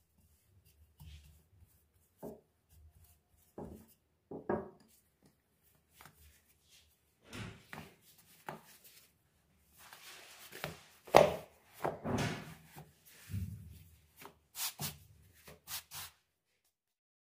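Hands and a wooden rolling pin working a sheet of dough on a granite countertop: scattered rubbing and knocks of the pin and dough against the stone, loudest about eleven seconds in, stopping about a second before the end.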